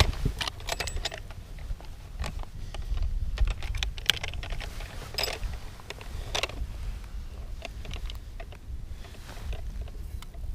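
Irregular clicks, taps and small knocks from handling a fish and its weighing scale on a boat, over a steady low rumble.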